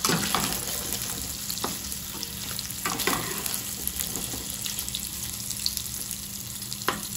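Paneer pieces shallow-frying in hot oil in a kadai, a steady sizzle, with a few sharp clicks of the utensil against the pan as the pieces are turned.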